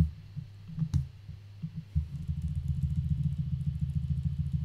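A low rumble with a fast, even pulsing, swelling about two seconds in, after two short knocks near the start.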